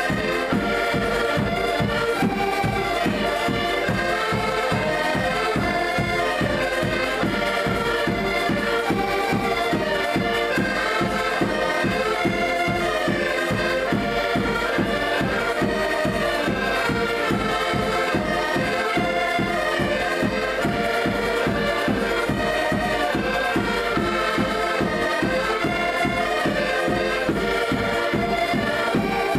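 Ensemble of several accordions playing traditional Portuguese folk music together, with a bass drum keeping a steady beat.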